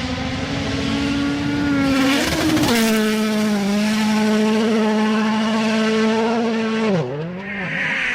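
An engine running at high, steady revs with a slightly wavering note. About two seconds in there is a short noisy burst and the note settles a little lower; near the end the pitch dips sharply and comes back up.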